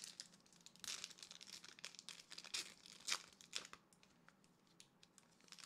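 Foil Pokémon booster pack wrapper crinkling in short, scattered crackles as it is handled and opened.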